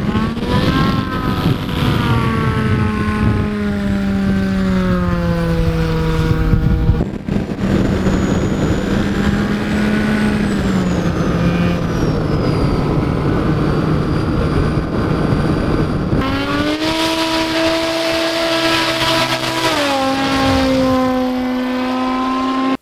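Turbocharged Yamaha four-cylinder snowmobile engine driving the propeller of a Highlander STOL plane, running hard with its note falling in pitch several times. The sound changes abruptly about seven and sixteen seconds in, where the takes change.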